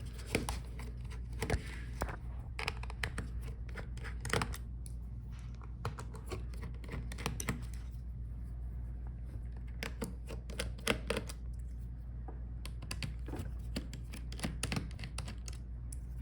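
Scattered light clicks and taps of a small screwdriver, screws and plastic connector clips being worked by hand on a Dell Latitude 5420 laptop's motherboard, over a low steady hum.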